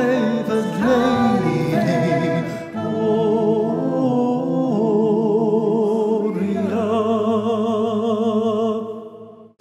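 A sung Christmas carol with long held notes and vibrato over instrumental backing, fading out about nine seconds in.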